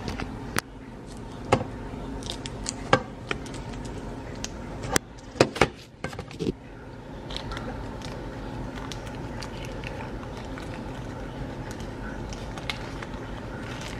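Hands handling sliced cheese and its plastic wrapping on a plate: scattered small clicks and crinkles, with a few louder knocks around the middle, over a steady low hum.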